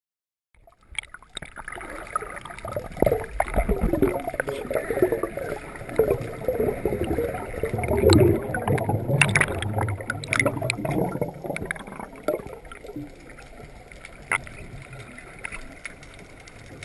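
Water sloshing and gurgling around a boat, with scattered knocks. It starts about half a second in, is loudest through the middle and eases off near the end.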